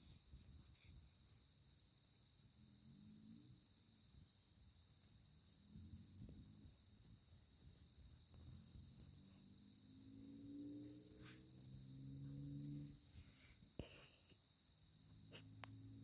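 Steady high-pitched chorus of crickets. A faint low hum comes and goes underneath, strongest a little past the middle, with a few small clicks.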